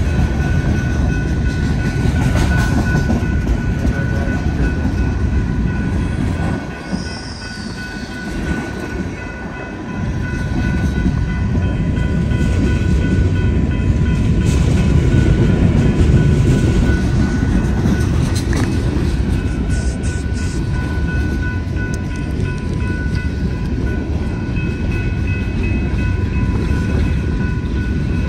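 Empty coal cars of a freight train rolling past at a grade crossing: a loud steady rumble of wheels on the rails that eases briefly about a third of the way in. The crossing warning bell rings steadily over it throughout.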